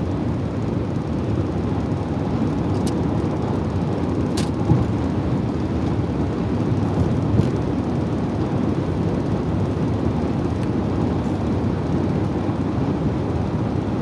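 Steady road and engine noise inside a car cabin at highway speed, with a few faint clicks.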